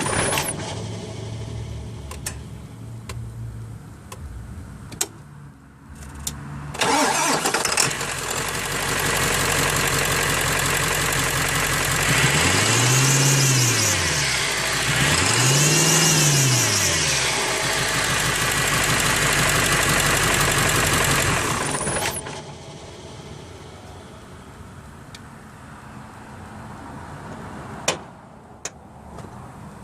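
A 7.3-litre truck engine starts about seven seconds in and runs loudly. Its pitch rises and falls twice, about three seconds apart, as it is revved. It shuts off a little after twenty seconds, leaving a low hum and a single click near the end.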